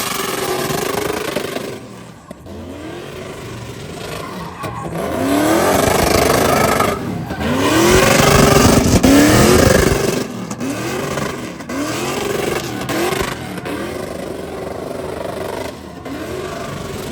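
A vehicle engine revved hard again and again, each rev a quick climb in pitch, over a steady hiss of tire noise typical of a burnout.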